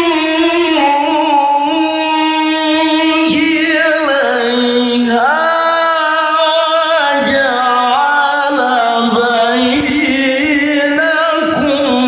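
Male qari chanting a Quran recitation (tilawah) solo into a microphone, in long melismatic phrases with held, wavering notes.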